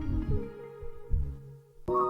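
Soft ambient background music: sustained tones over a pulsing bass, thinning out before a new held chord comes in sharply near the end.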